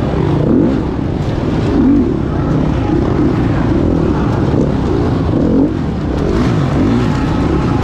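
Gas Gas 350 four-stroke single-cylinder dirt bike engine heard from on the bike, its revs rising and falling over and over as the rider works the throttle.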